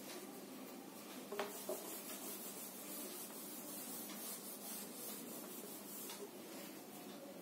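A whiteboard eraser rubbing across a whiteboard in repeated back-and-forth strokes, wiping off marker writing, with two light knocks about a second and a half in.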